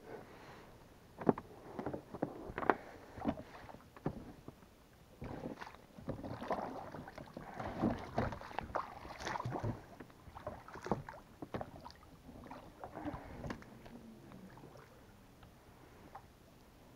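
Irregular knocks, clunks and swishing water from moving about and handling gear in a small boat on the river.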